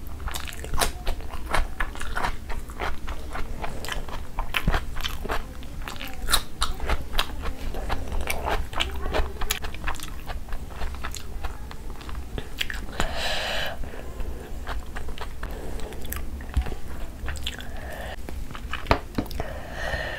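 Close-up crunchy biting and chewing of a crisp raw cucumber slice, a dense run of sharp crunches throughout.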